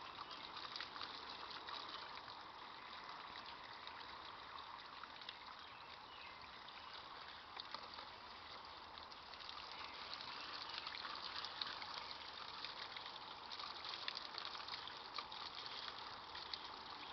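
Garden hose spraying, a steady faint hiss of running water with fine spattering crackle.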